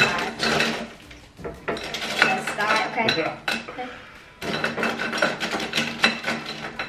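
A hand rummaging through a glass bowl full of plastic markers: the markers clatter and clink against each other and the glass in several irregular bursts with short pauses between.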